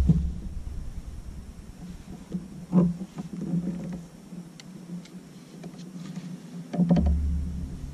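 Scattered knocks and clunks of gear against a plastic fishing kayak, the loudest about three seconds in. A low rumble fades out at the start and returns briefly near the end.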